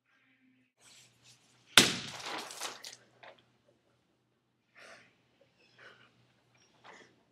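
A paint-filled balloon hits the paper-covered wall and bursts with one sharp splat about two seconds in, the paint spattering for about a second after. A few faint short sounds follow.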